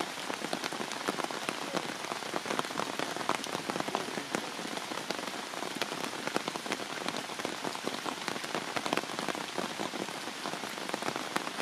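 Heavy rain falling steadily, a dense patter of individual drops striking close by over an even hiss.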